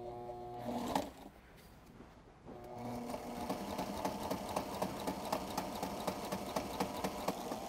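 Sewing machine straight-stitching through black bias binding basted on clear vinyl window material. A short run at the start, a pause of about two seconds, then steady running with rapid, even needle strokes.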